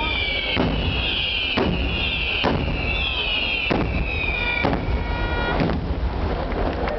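Fireworks going off: about six sharp bangs roughly a second apart, with falling whistles between them and a few steady whistles just before the last bangs.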